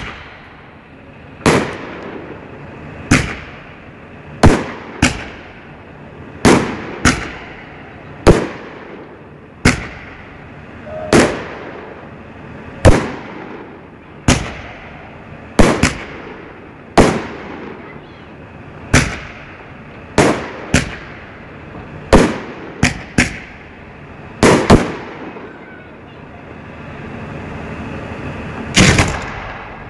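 Aerial fireworks shells bursting in a steady run of sharp bangs, about one every second or so, some in quick pairs, each with a short echoing tail. There is a pause of a few seconds near the end before another loud bang.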